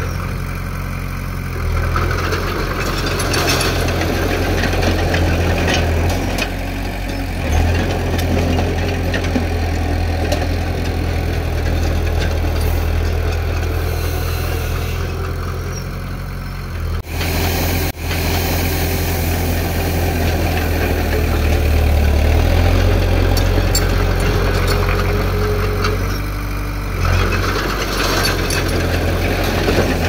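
Diesel engine of heavy earthmoving machinery running steadily at low engine speed, the sound dipping out twice for an instant a little past the middle.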